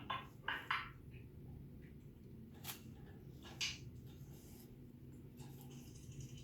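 African grey parrot giving short, sharp calls: four in quick succession in the first second, then two single ones about a second apart near the middle.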